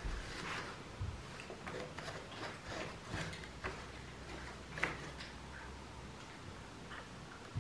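Hands crumbling a pressed block of dried rice koji and handling cheesecloth: light, irregular crackles and rustles, with one sharper click a little under five seconds in.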